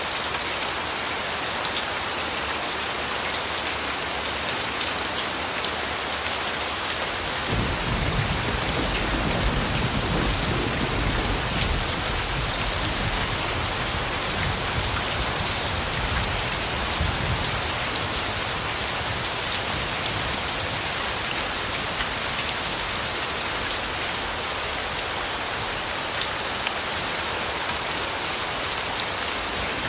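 Steady rain falling, a dense even hiss. About a quarter of the way in a low rumble of thunder comes in and fades away over some ten seconds.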